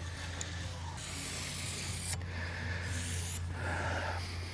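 Pencil scratching a marking line along a speed square onto a pine board, in a few long strokes, over a steady low hum.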